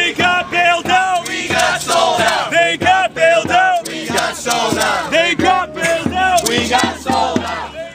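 Crowd of marching protesters shouting a rhythmic chant, many voices together.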